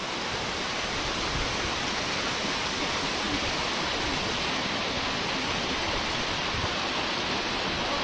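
Steady rushing of a waterfall and the stream below it, an even unbroken roar of falling water.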